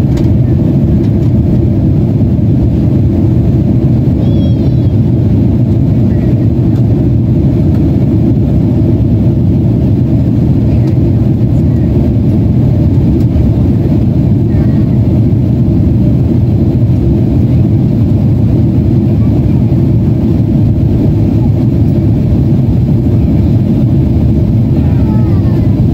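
Steady, loud cabin noise of a Boeing 767-400ER airliner in flight: a low, even roar of the engines and rushing air, heard from a passenger window seat.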